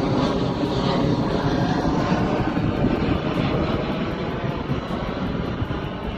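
Airplane flying low overhead: a loud, steady engine rumble and rush that eases slightly near the end.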